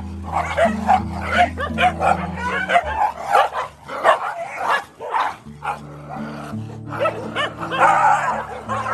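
A pack of village dogs fighting, with rapid, overlapping barks and yelps throughout. Background music with held low notes plays under them, dropping out for a couple of seconds in the middle.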